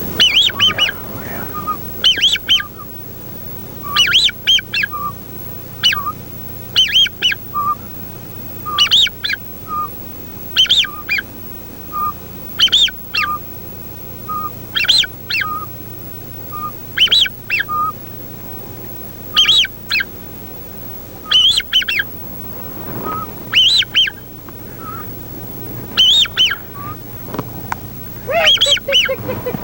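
Loud, high whistled calls repeated at an even pace about every two seconds, each led by a short lower note, during a wait for incoming ducks.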